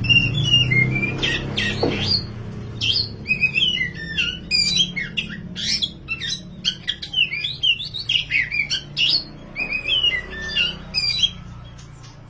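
Oriental magpie-robin (kacer, the dark 'wulung' form) singing energetically in quick, varied chirps and whistles, a continuous song that stops about a second before the end, over a steady low hum.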